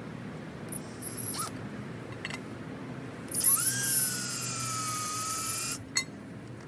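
Power drill drilling a mounting hole in a mirror base plate: a short burst about a second in, then a run of about two and a half seconds whose whine climbs as the motor spins up and then sags slightly as the bit bites.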